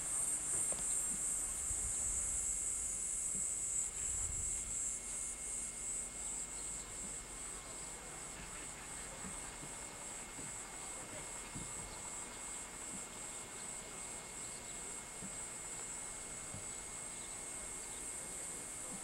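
A high, evenly pulsing chorus of insects in the surrounding vegetation. Low bumps of wind or handling on the microphone come in the first few seconds.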